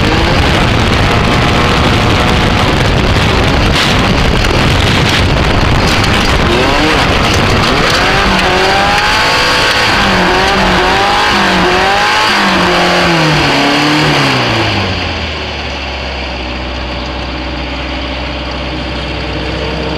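Off-road light buggy's engine running hard at race speed with wind and dirt noise, then its revs rising and falling unevenly before dropping away to a steady idle as the buggy comes to a stop after a brake drum failure.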